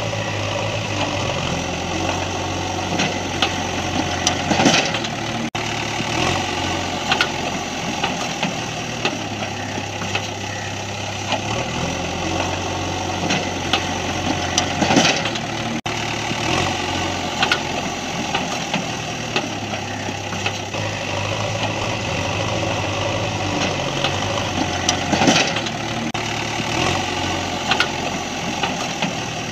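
Steady engine-idling sound, a low hum that steps up and down in pitch every few seconds, with a short louder rattle about every ten seconds. The plastic toys make no such sound, so it is a dubbed engine sound effect, looping.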